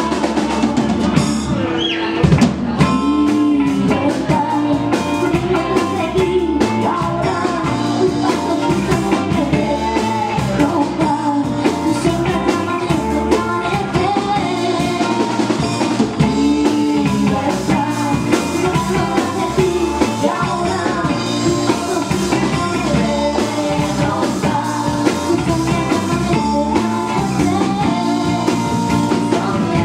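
A live rock band playing a song: a woman sings lead over a drum kit, guitars and bass.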